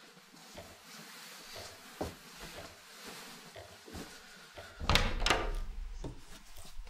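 Wooden apartment door's lock and latch clicking a couple of times about five seconds in, followed by a low rumble as the door is worked; before that, only faint room hiss.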